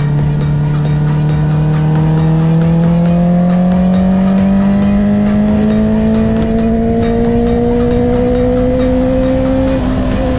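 Honda CB650R's inline-four engine through an Akrapovic titanium exhaust, pulling hard in fifth gear under full acceleration, its pitch climbing steadily with engine speed. Near the end the note breaks briefly and begins to fall back.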